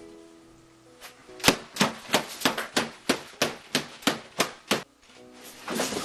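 A rapid series of about a dozen sharp knocks, roughly three a second, over light background music, followed by a brief swell of hiss near the end.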